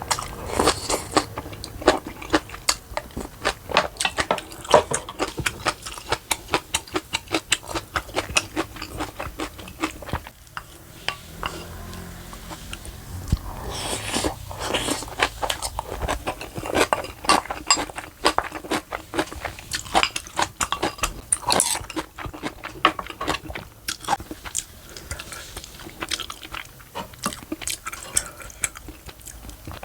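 A person chewing and crunching food close to the microphone, a quick run of wet, crisp bites with utensils clicking against dishes. The crunching stops briefly about ten seconds in, then picks up again.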